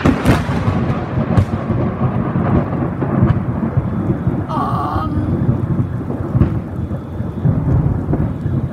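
Loud, close thunder: a sudden crack at the start, then a long heavy rumble, over steady heavy rain.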